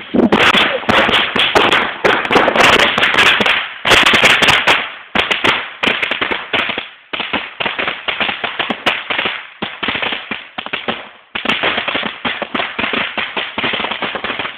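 Strings of firecrackers going off in rapid volleys of sharp cracks, loudest and densest for the first five seconds, then carrying on a little quieter with two brief lulls.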